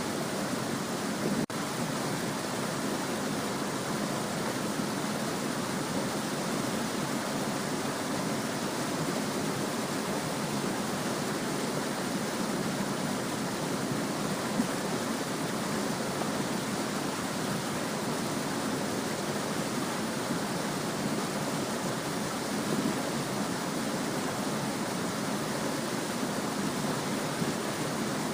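Small brook babbling steadily, an unbroken rush of flowing water, with a split-second dropout about a second and a half in.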